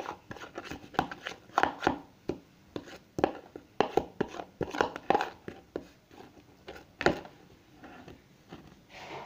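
A spoon scraping and knocking against a plastic bowl while stirring glue and liquid-detergent activator into slime: irregular taps and scrapes, the sharpest knock about seven seconds in.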